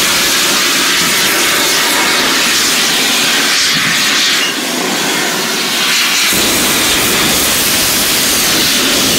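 The LNER Class A3 steam locomotive Flying Scotsman releasing steam in a loud, steady hiss, which dips briefly about four and a half seconds in.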